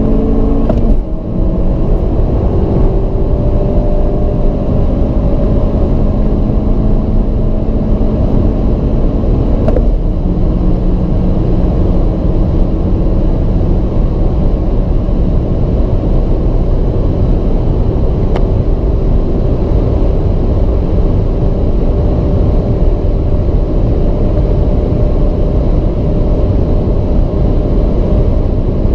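Honda Civic Type R's turbocharged 2.0-litre four-cylinder under full-throttle acceleration at very high speed, its pitch climbing slowly. It upshifts about a second in and again about ten seconds in, over a steady rush of wind and road noise.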